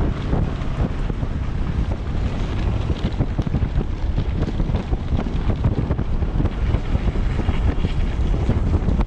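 Heavy wind buffeting a GoPro microphone moving at speed: a steady low rumble with constant fluttering gusts.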